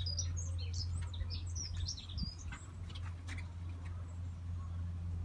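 Young canaries chirping in an aviary: a quick flurry of short, high chirps over the first two to three seconds, then thinning out, with a few clicks about three seconds in. A steady low hum runs underneath.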